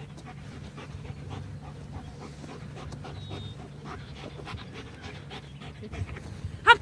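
Dog panting in a steady rhythm, with a brief high squeal near the end.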